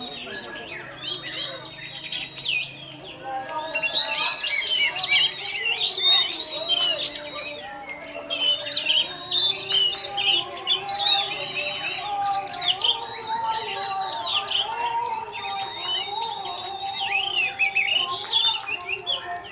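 Orange-headed thrush (anis merah) singing continuously in its full 'teler' song: a fast, varied run of chirps, whistles and trills with a few held high notes.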